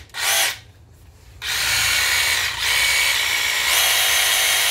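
DeWalt 20V Max XR cordless jigsaw running free with its blade in the air. A brief trigger pull comes first, then a run of nearly four seconds of motor-and-blade whine. Partway through, the speed eases and then picks up again.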